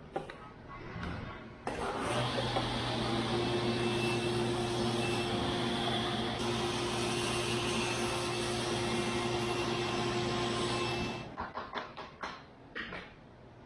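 A motor switches on about two seconds in, runs steadily with an even hum and whoosh for about nine seconds, then stops, followed by a few short clicks.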